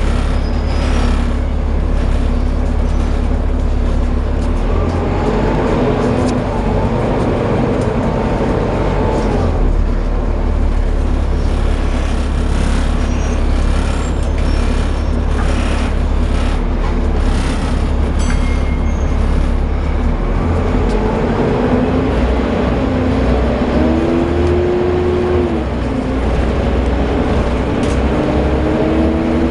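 Volvo B7TL double-decker bus running under way, its diesel engine rumbling steadily under a loud whine that rises and falls in pitch several times as the bus pulls away and changes speed. The whine is the vacuum-cleaner-like 'Hoover' sound this bus is known for.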